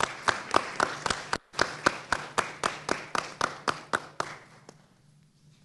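A small group of seated people clapping, the sharp claps evenly paced at about four a second and dying away about four and a half seconds in.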